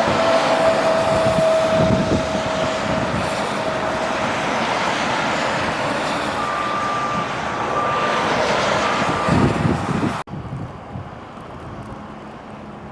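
Road traffic: vehicles running and passing, with a steady engine or tyre tone that sinks a little early on and a broken higher whine later. About ten seconds in, the sound cuts abruptly to a quieter, duller rush.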